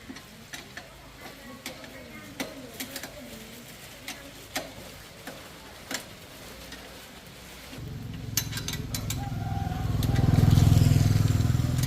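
Light metallic clicks and taps. About eight seconds in, a motorcycle engine starts running, swelling louder toward the end.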